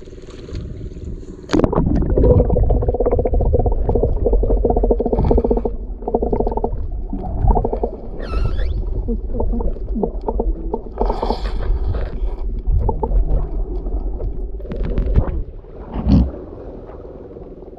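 Water splashing and sloshing around a small wooden outrigger boat, with a loud rushing noise from about a second and a half in, and a steady low hum underneath.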